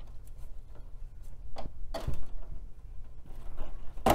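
Power connectors and ribbon cables being pulled and handled inside a PC tower's metal case: scattered clicks, knocks and rustling of plastic, with a sharper knock near the end, over a low steady hum.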